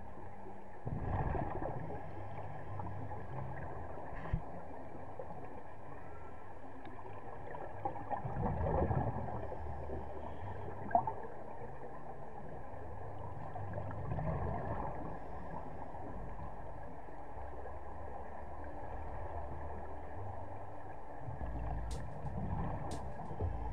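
Scuba diver's breathing heard underwater: bursts of exhaled bubbles from the regulator about every six to seven seconds over steady background noise, with a few sharp clicks near the end.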